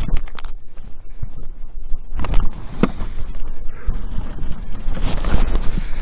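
Irregular crunching scuffs and thumps in snow around a fallen dirt bike, over a low rumble of wind on the helmet-camera microphone.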